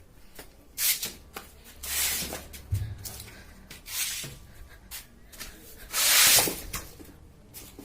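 Rustling and rubbing handling noises with scattered clicks and several short swishes, the loudest about six seconds in.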